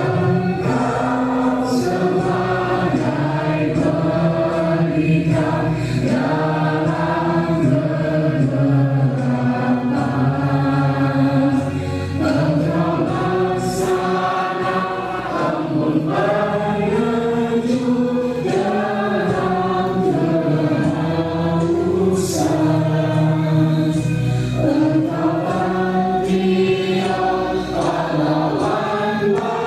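Junior-high school choir of ninth-grade students singing together, sustained sung notes moving in pitch at a steady loudness.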